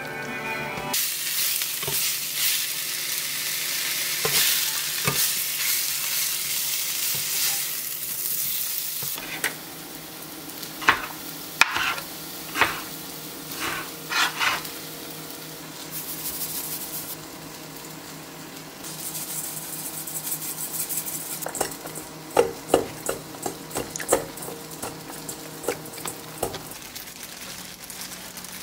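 A thin egg sheet sizzles in a cast-iron skillet as a steady hiss. Then a kitchen knife chops greens on a cutting board: sharp single knocks in two runs of several strokes each, separated by a quieter stretch.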